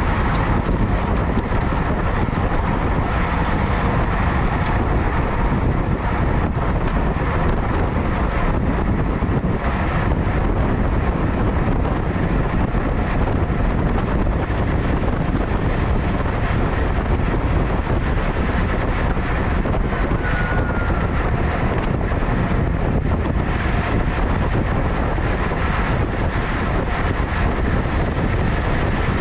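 Steady wind noise rushing over the microphone of a bike-mounted camera on a road bike riding at race speed in a pack, with road noise from the tyres beneath.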